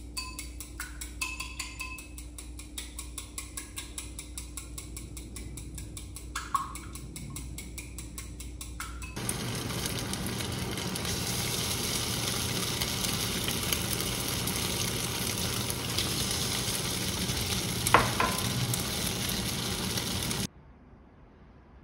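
Chopsticks clicking rapidly against a small ceramic bowl as a mixture is beaten. About nine seconds in, this gives way to coated tofu pieces sizzling in oil in a frying pan, with a sharp tap near the end as a piece goes in, and the sizzle cuts off suddenly.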